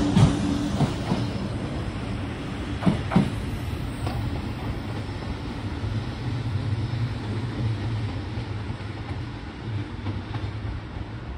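Shinkansen 500 series train moving away along the track: a few sharp wheel clacks over the rail joints in the first three seconds, some in pairs, then a steady low rumble that slowly fades as the train recedes.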